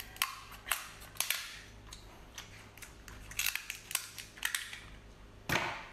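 Kitchen scissors snipping through the hard shell of a cooked king crab leg: an irregular series of sharp cracking snaps, with a longer crunch near the end.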